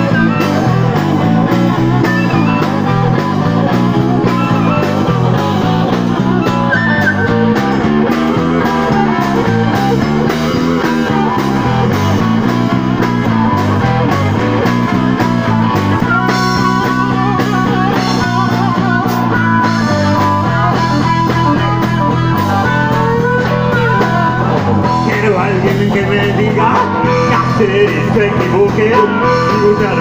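Live blues-rock band playing an instrumental break: electric guitars, a walking bass line, drums and harmonica.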